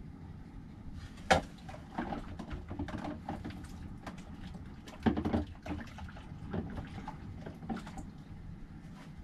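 Dishes and utensils knocking and clinking at a small camper van sink. There is a sharp knock a little over a second in and a short clatter about five seconds in, over a steady low background.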